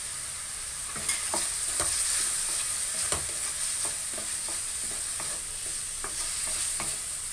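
Chopped red onions sizzling in hot oil in an aluminium kadai: a steady frying hiss with scattered light clicks and taps as the onions go in by hand and are stirred.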